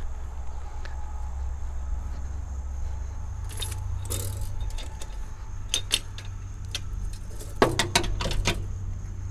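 Metal-on-metal clinking and jangling from a tow-behind lawn dethatcher's hitch being coupled to a riding mower, in several short bursts that are busiest about eight seconds in, over a steady low rumble.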